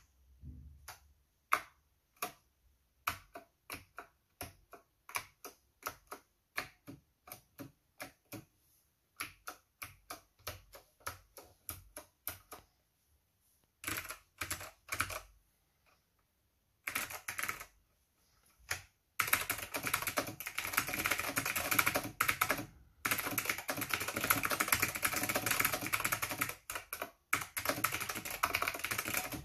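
Typing on a 1991 Acer 6012 keyboard with clicky Alps SKCM white switches: slow separate keystrokes at first, a few short bursts, then fast continuous typing through the second half with one brief pause.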